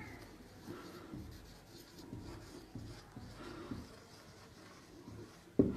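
Marker pen writing on a whiteboard: faint, irregular scratching and small squeaks of the felt tip as words are written. There is one short, louder knock just before the end.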